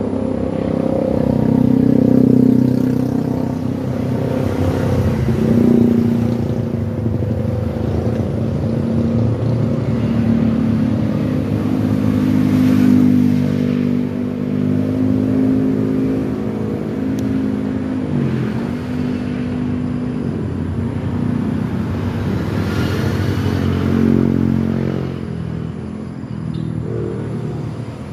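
A road vehicle's engine running, its pitch dipping and rising again as it slows and speeds up, over a steady rush of road noise.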